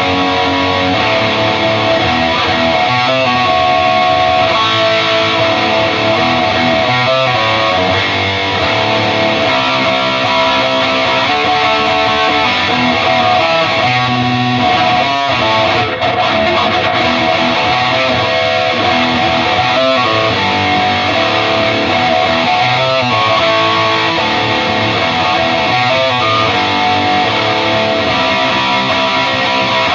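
Heavily distorted electric guitar riffing and strumming continuously through a Peavey 6505 MH amp head into a Mesa 2×12 speaker cabinet.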